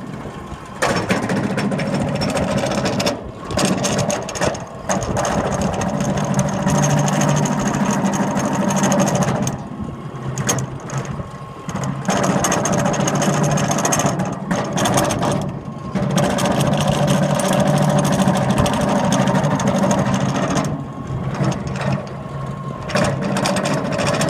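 Oilfield pumpjack running, a steady mechanical whine and rumble that drops away briefly and comes back every few seconds. It is the kind of noise that could come from loose belts or bad bearings; the owner isn't sure which.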